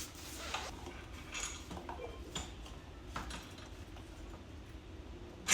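Light metallic clicks and clinks as an engine is lifted into a minibike frame and a mounting bolt is pushed through, with a sharper metal knock near the end.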